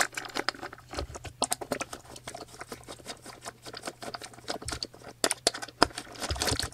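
Screwdriver turning a tight screw out of a kitchen scale's metal base and load-cell beam: irregular small clicks and scrapes of metal on metal, with the parts being handled.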